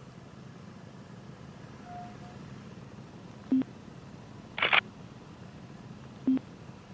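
Motorcycles idling at a standstill, a low steady hum. Two short, loud beeps break it, one about three and a half seconds in and one near the end, with a brief burst of noise in between.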